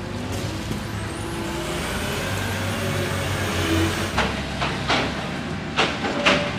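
Diesel truck engine idling with a steady low hum. From about four seconds in, a few short, sharp sounds break in over it.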